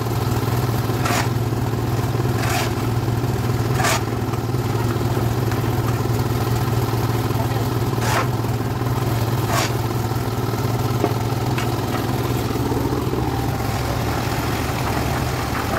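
Portable engine-driven drum concrete mixer running steadily, with about five sharp scrapes of a shovel on wet concrete and pavement during the first ten seconds.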